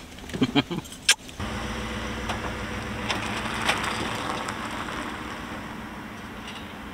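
A truck towing a tandem-axle enclosed cargo trailer drives past: tyre and engine noise swells to a peak about three seconds in, then fades as it pulls away. A few sharp knocks come in the first second.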